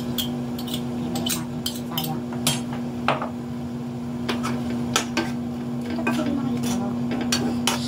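Metal spoon clinking and scraping against a metal cooking pot while stirring, with many scattered sharp clinks. A steady low hum runs underneath.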